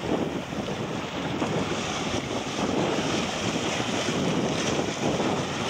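Wind buffeting the microphone over the wash of choppy water, a steady noise with no engine tone in it; the breeze has freshened.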